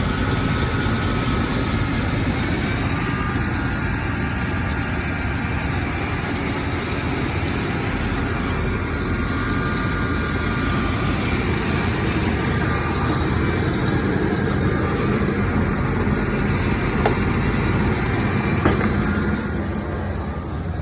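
1992 Chevrolet K1500's V8 engine running steadily, with two sharp clicks near the end.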